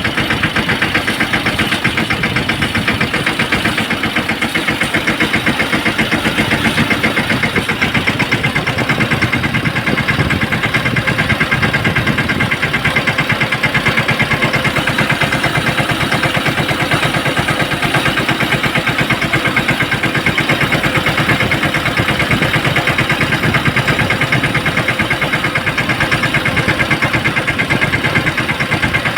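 Tractor engine running steadily at constant speed with fast, even firing pulses, powering a pesticide spray pump.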